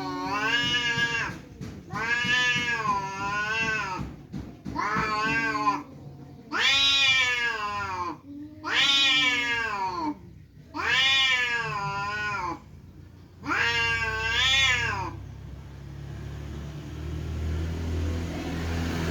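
Cats yowling at each other in a fight standoff: about seven long, wavering caterwauls, one every two seconds or so. A low rumble takes over for the last few seconds.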